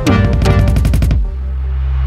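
Background music: a fast run of repeated, sharply struck notes, then a bit over a second in it drops to a held low bass note with a swelling rush of noise.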